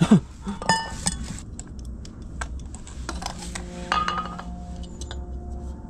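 Metal clinks and clanks of cookware and a small folding camp stove being handled and set down, with a few ringing strikes in the first second and another about four seconds in.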